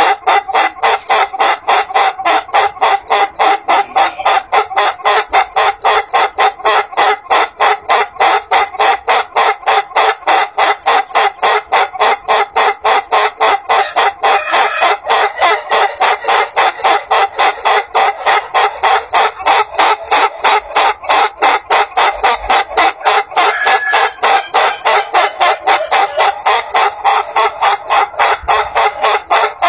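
Ayam Ketawa ("laughing rooster") crowing: a long, unbroken string of rapid, clipped "ha-ha-ha" notes, about four or five a second, keeping an even beat like a human laugh.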